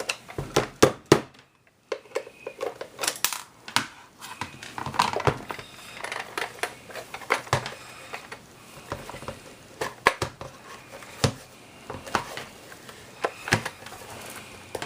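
Plastic parts of an electric kitchen chopper being handled and pried at while it is opened up: irregular clicks, knocks and rattles.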